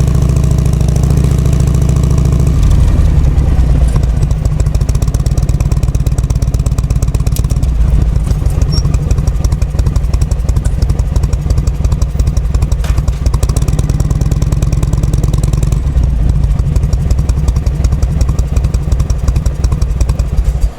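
Harley-Davidson Shovelhead FLH V-twin engine running with loud, rapid firing pulses, its note changing about two and a half seconds in. The engine has just had an abnormal noise repaired and is being run in.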